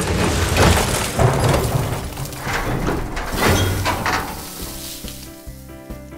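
Cartoon sound effect of a garbage truck tipping its body and dumping its load: a noisy rush and clatter of falling rubbish, lasting about four seconds. Light background music underlies it and comes to the fore near the end.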